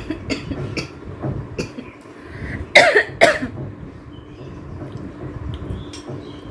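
A woman coughs twice, about half a second apart, while eating very spicy pasta. A few light clicks come before the coughs.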